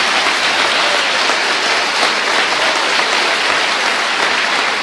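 Large audience applauding, steady dense clapping throughout.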